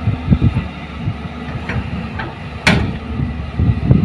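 A JCB excavator's diesel engine and idling dump trucks running with an irregular low rumble and thumping, while the excavator loads soil into a dump truck. A single sharp clank comes about two-thirds of the way through.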